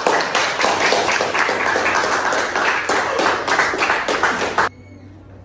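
A small group of students applauding with hand claps, which stops sharply about four and a half seconds in, leaving a faint low hum.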